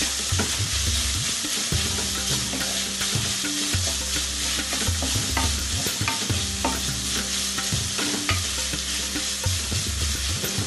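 Bacon sizzling steadily as it fries in a stainless steel pan, with a wooden spoon stirring and scraping through it and a few light knocks of the spoon against the pan.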